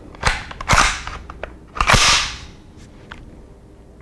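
The cocking handle and roller-delayed bolt of a CETME-pattern rifle being worked by hand, with sharp metallic clacks: two quick ones in the first second, then the loudest, with a brief ring, about two seconds in. A few small clicks of handling follow.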